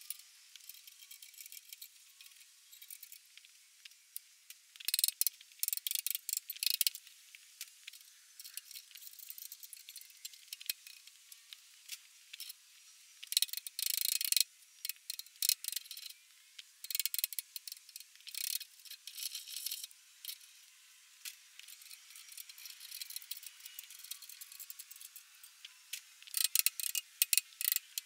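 Thin, high metallic clicking and rattling in quick irregular runs, from a hand tool working a bolt and threaded rod on the steel plow frame.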